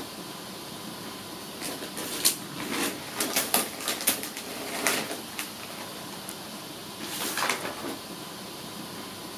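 Dry rice paper sheets crackling and rustling as they are peeled from bamboo drying racks and handled, in irregular crisp bursts with a lull of a second or two.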